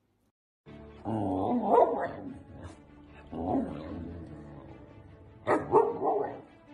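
A dog "talking" in drawn-out howl-like calls that waver in pitch, three of them, each about a second long, the first starting about a second in, over background music.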